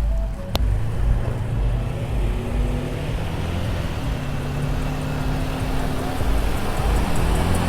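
Riding an electric unicycle (the Blitz), with wind rumbling on the microphone and a faint motor whine that rises in pitch near the end as the wheel speeds up.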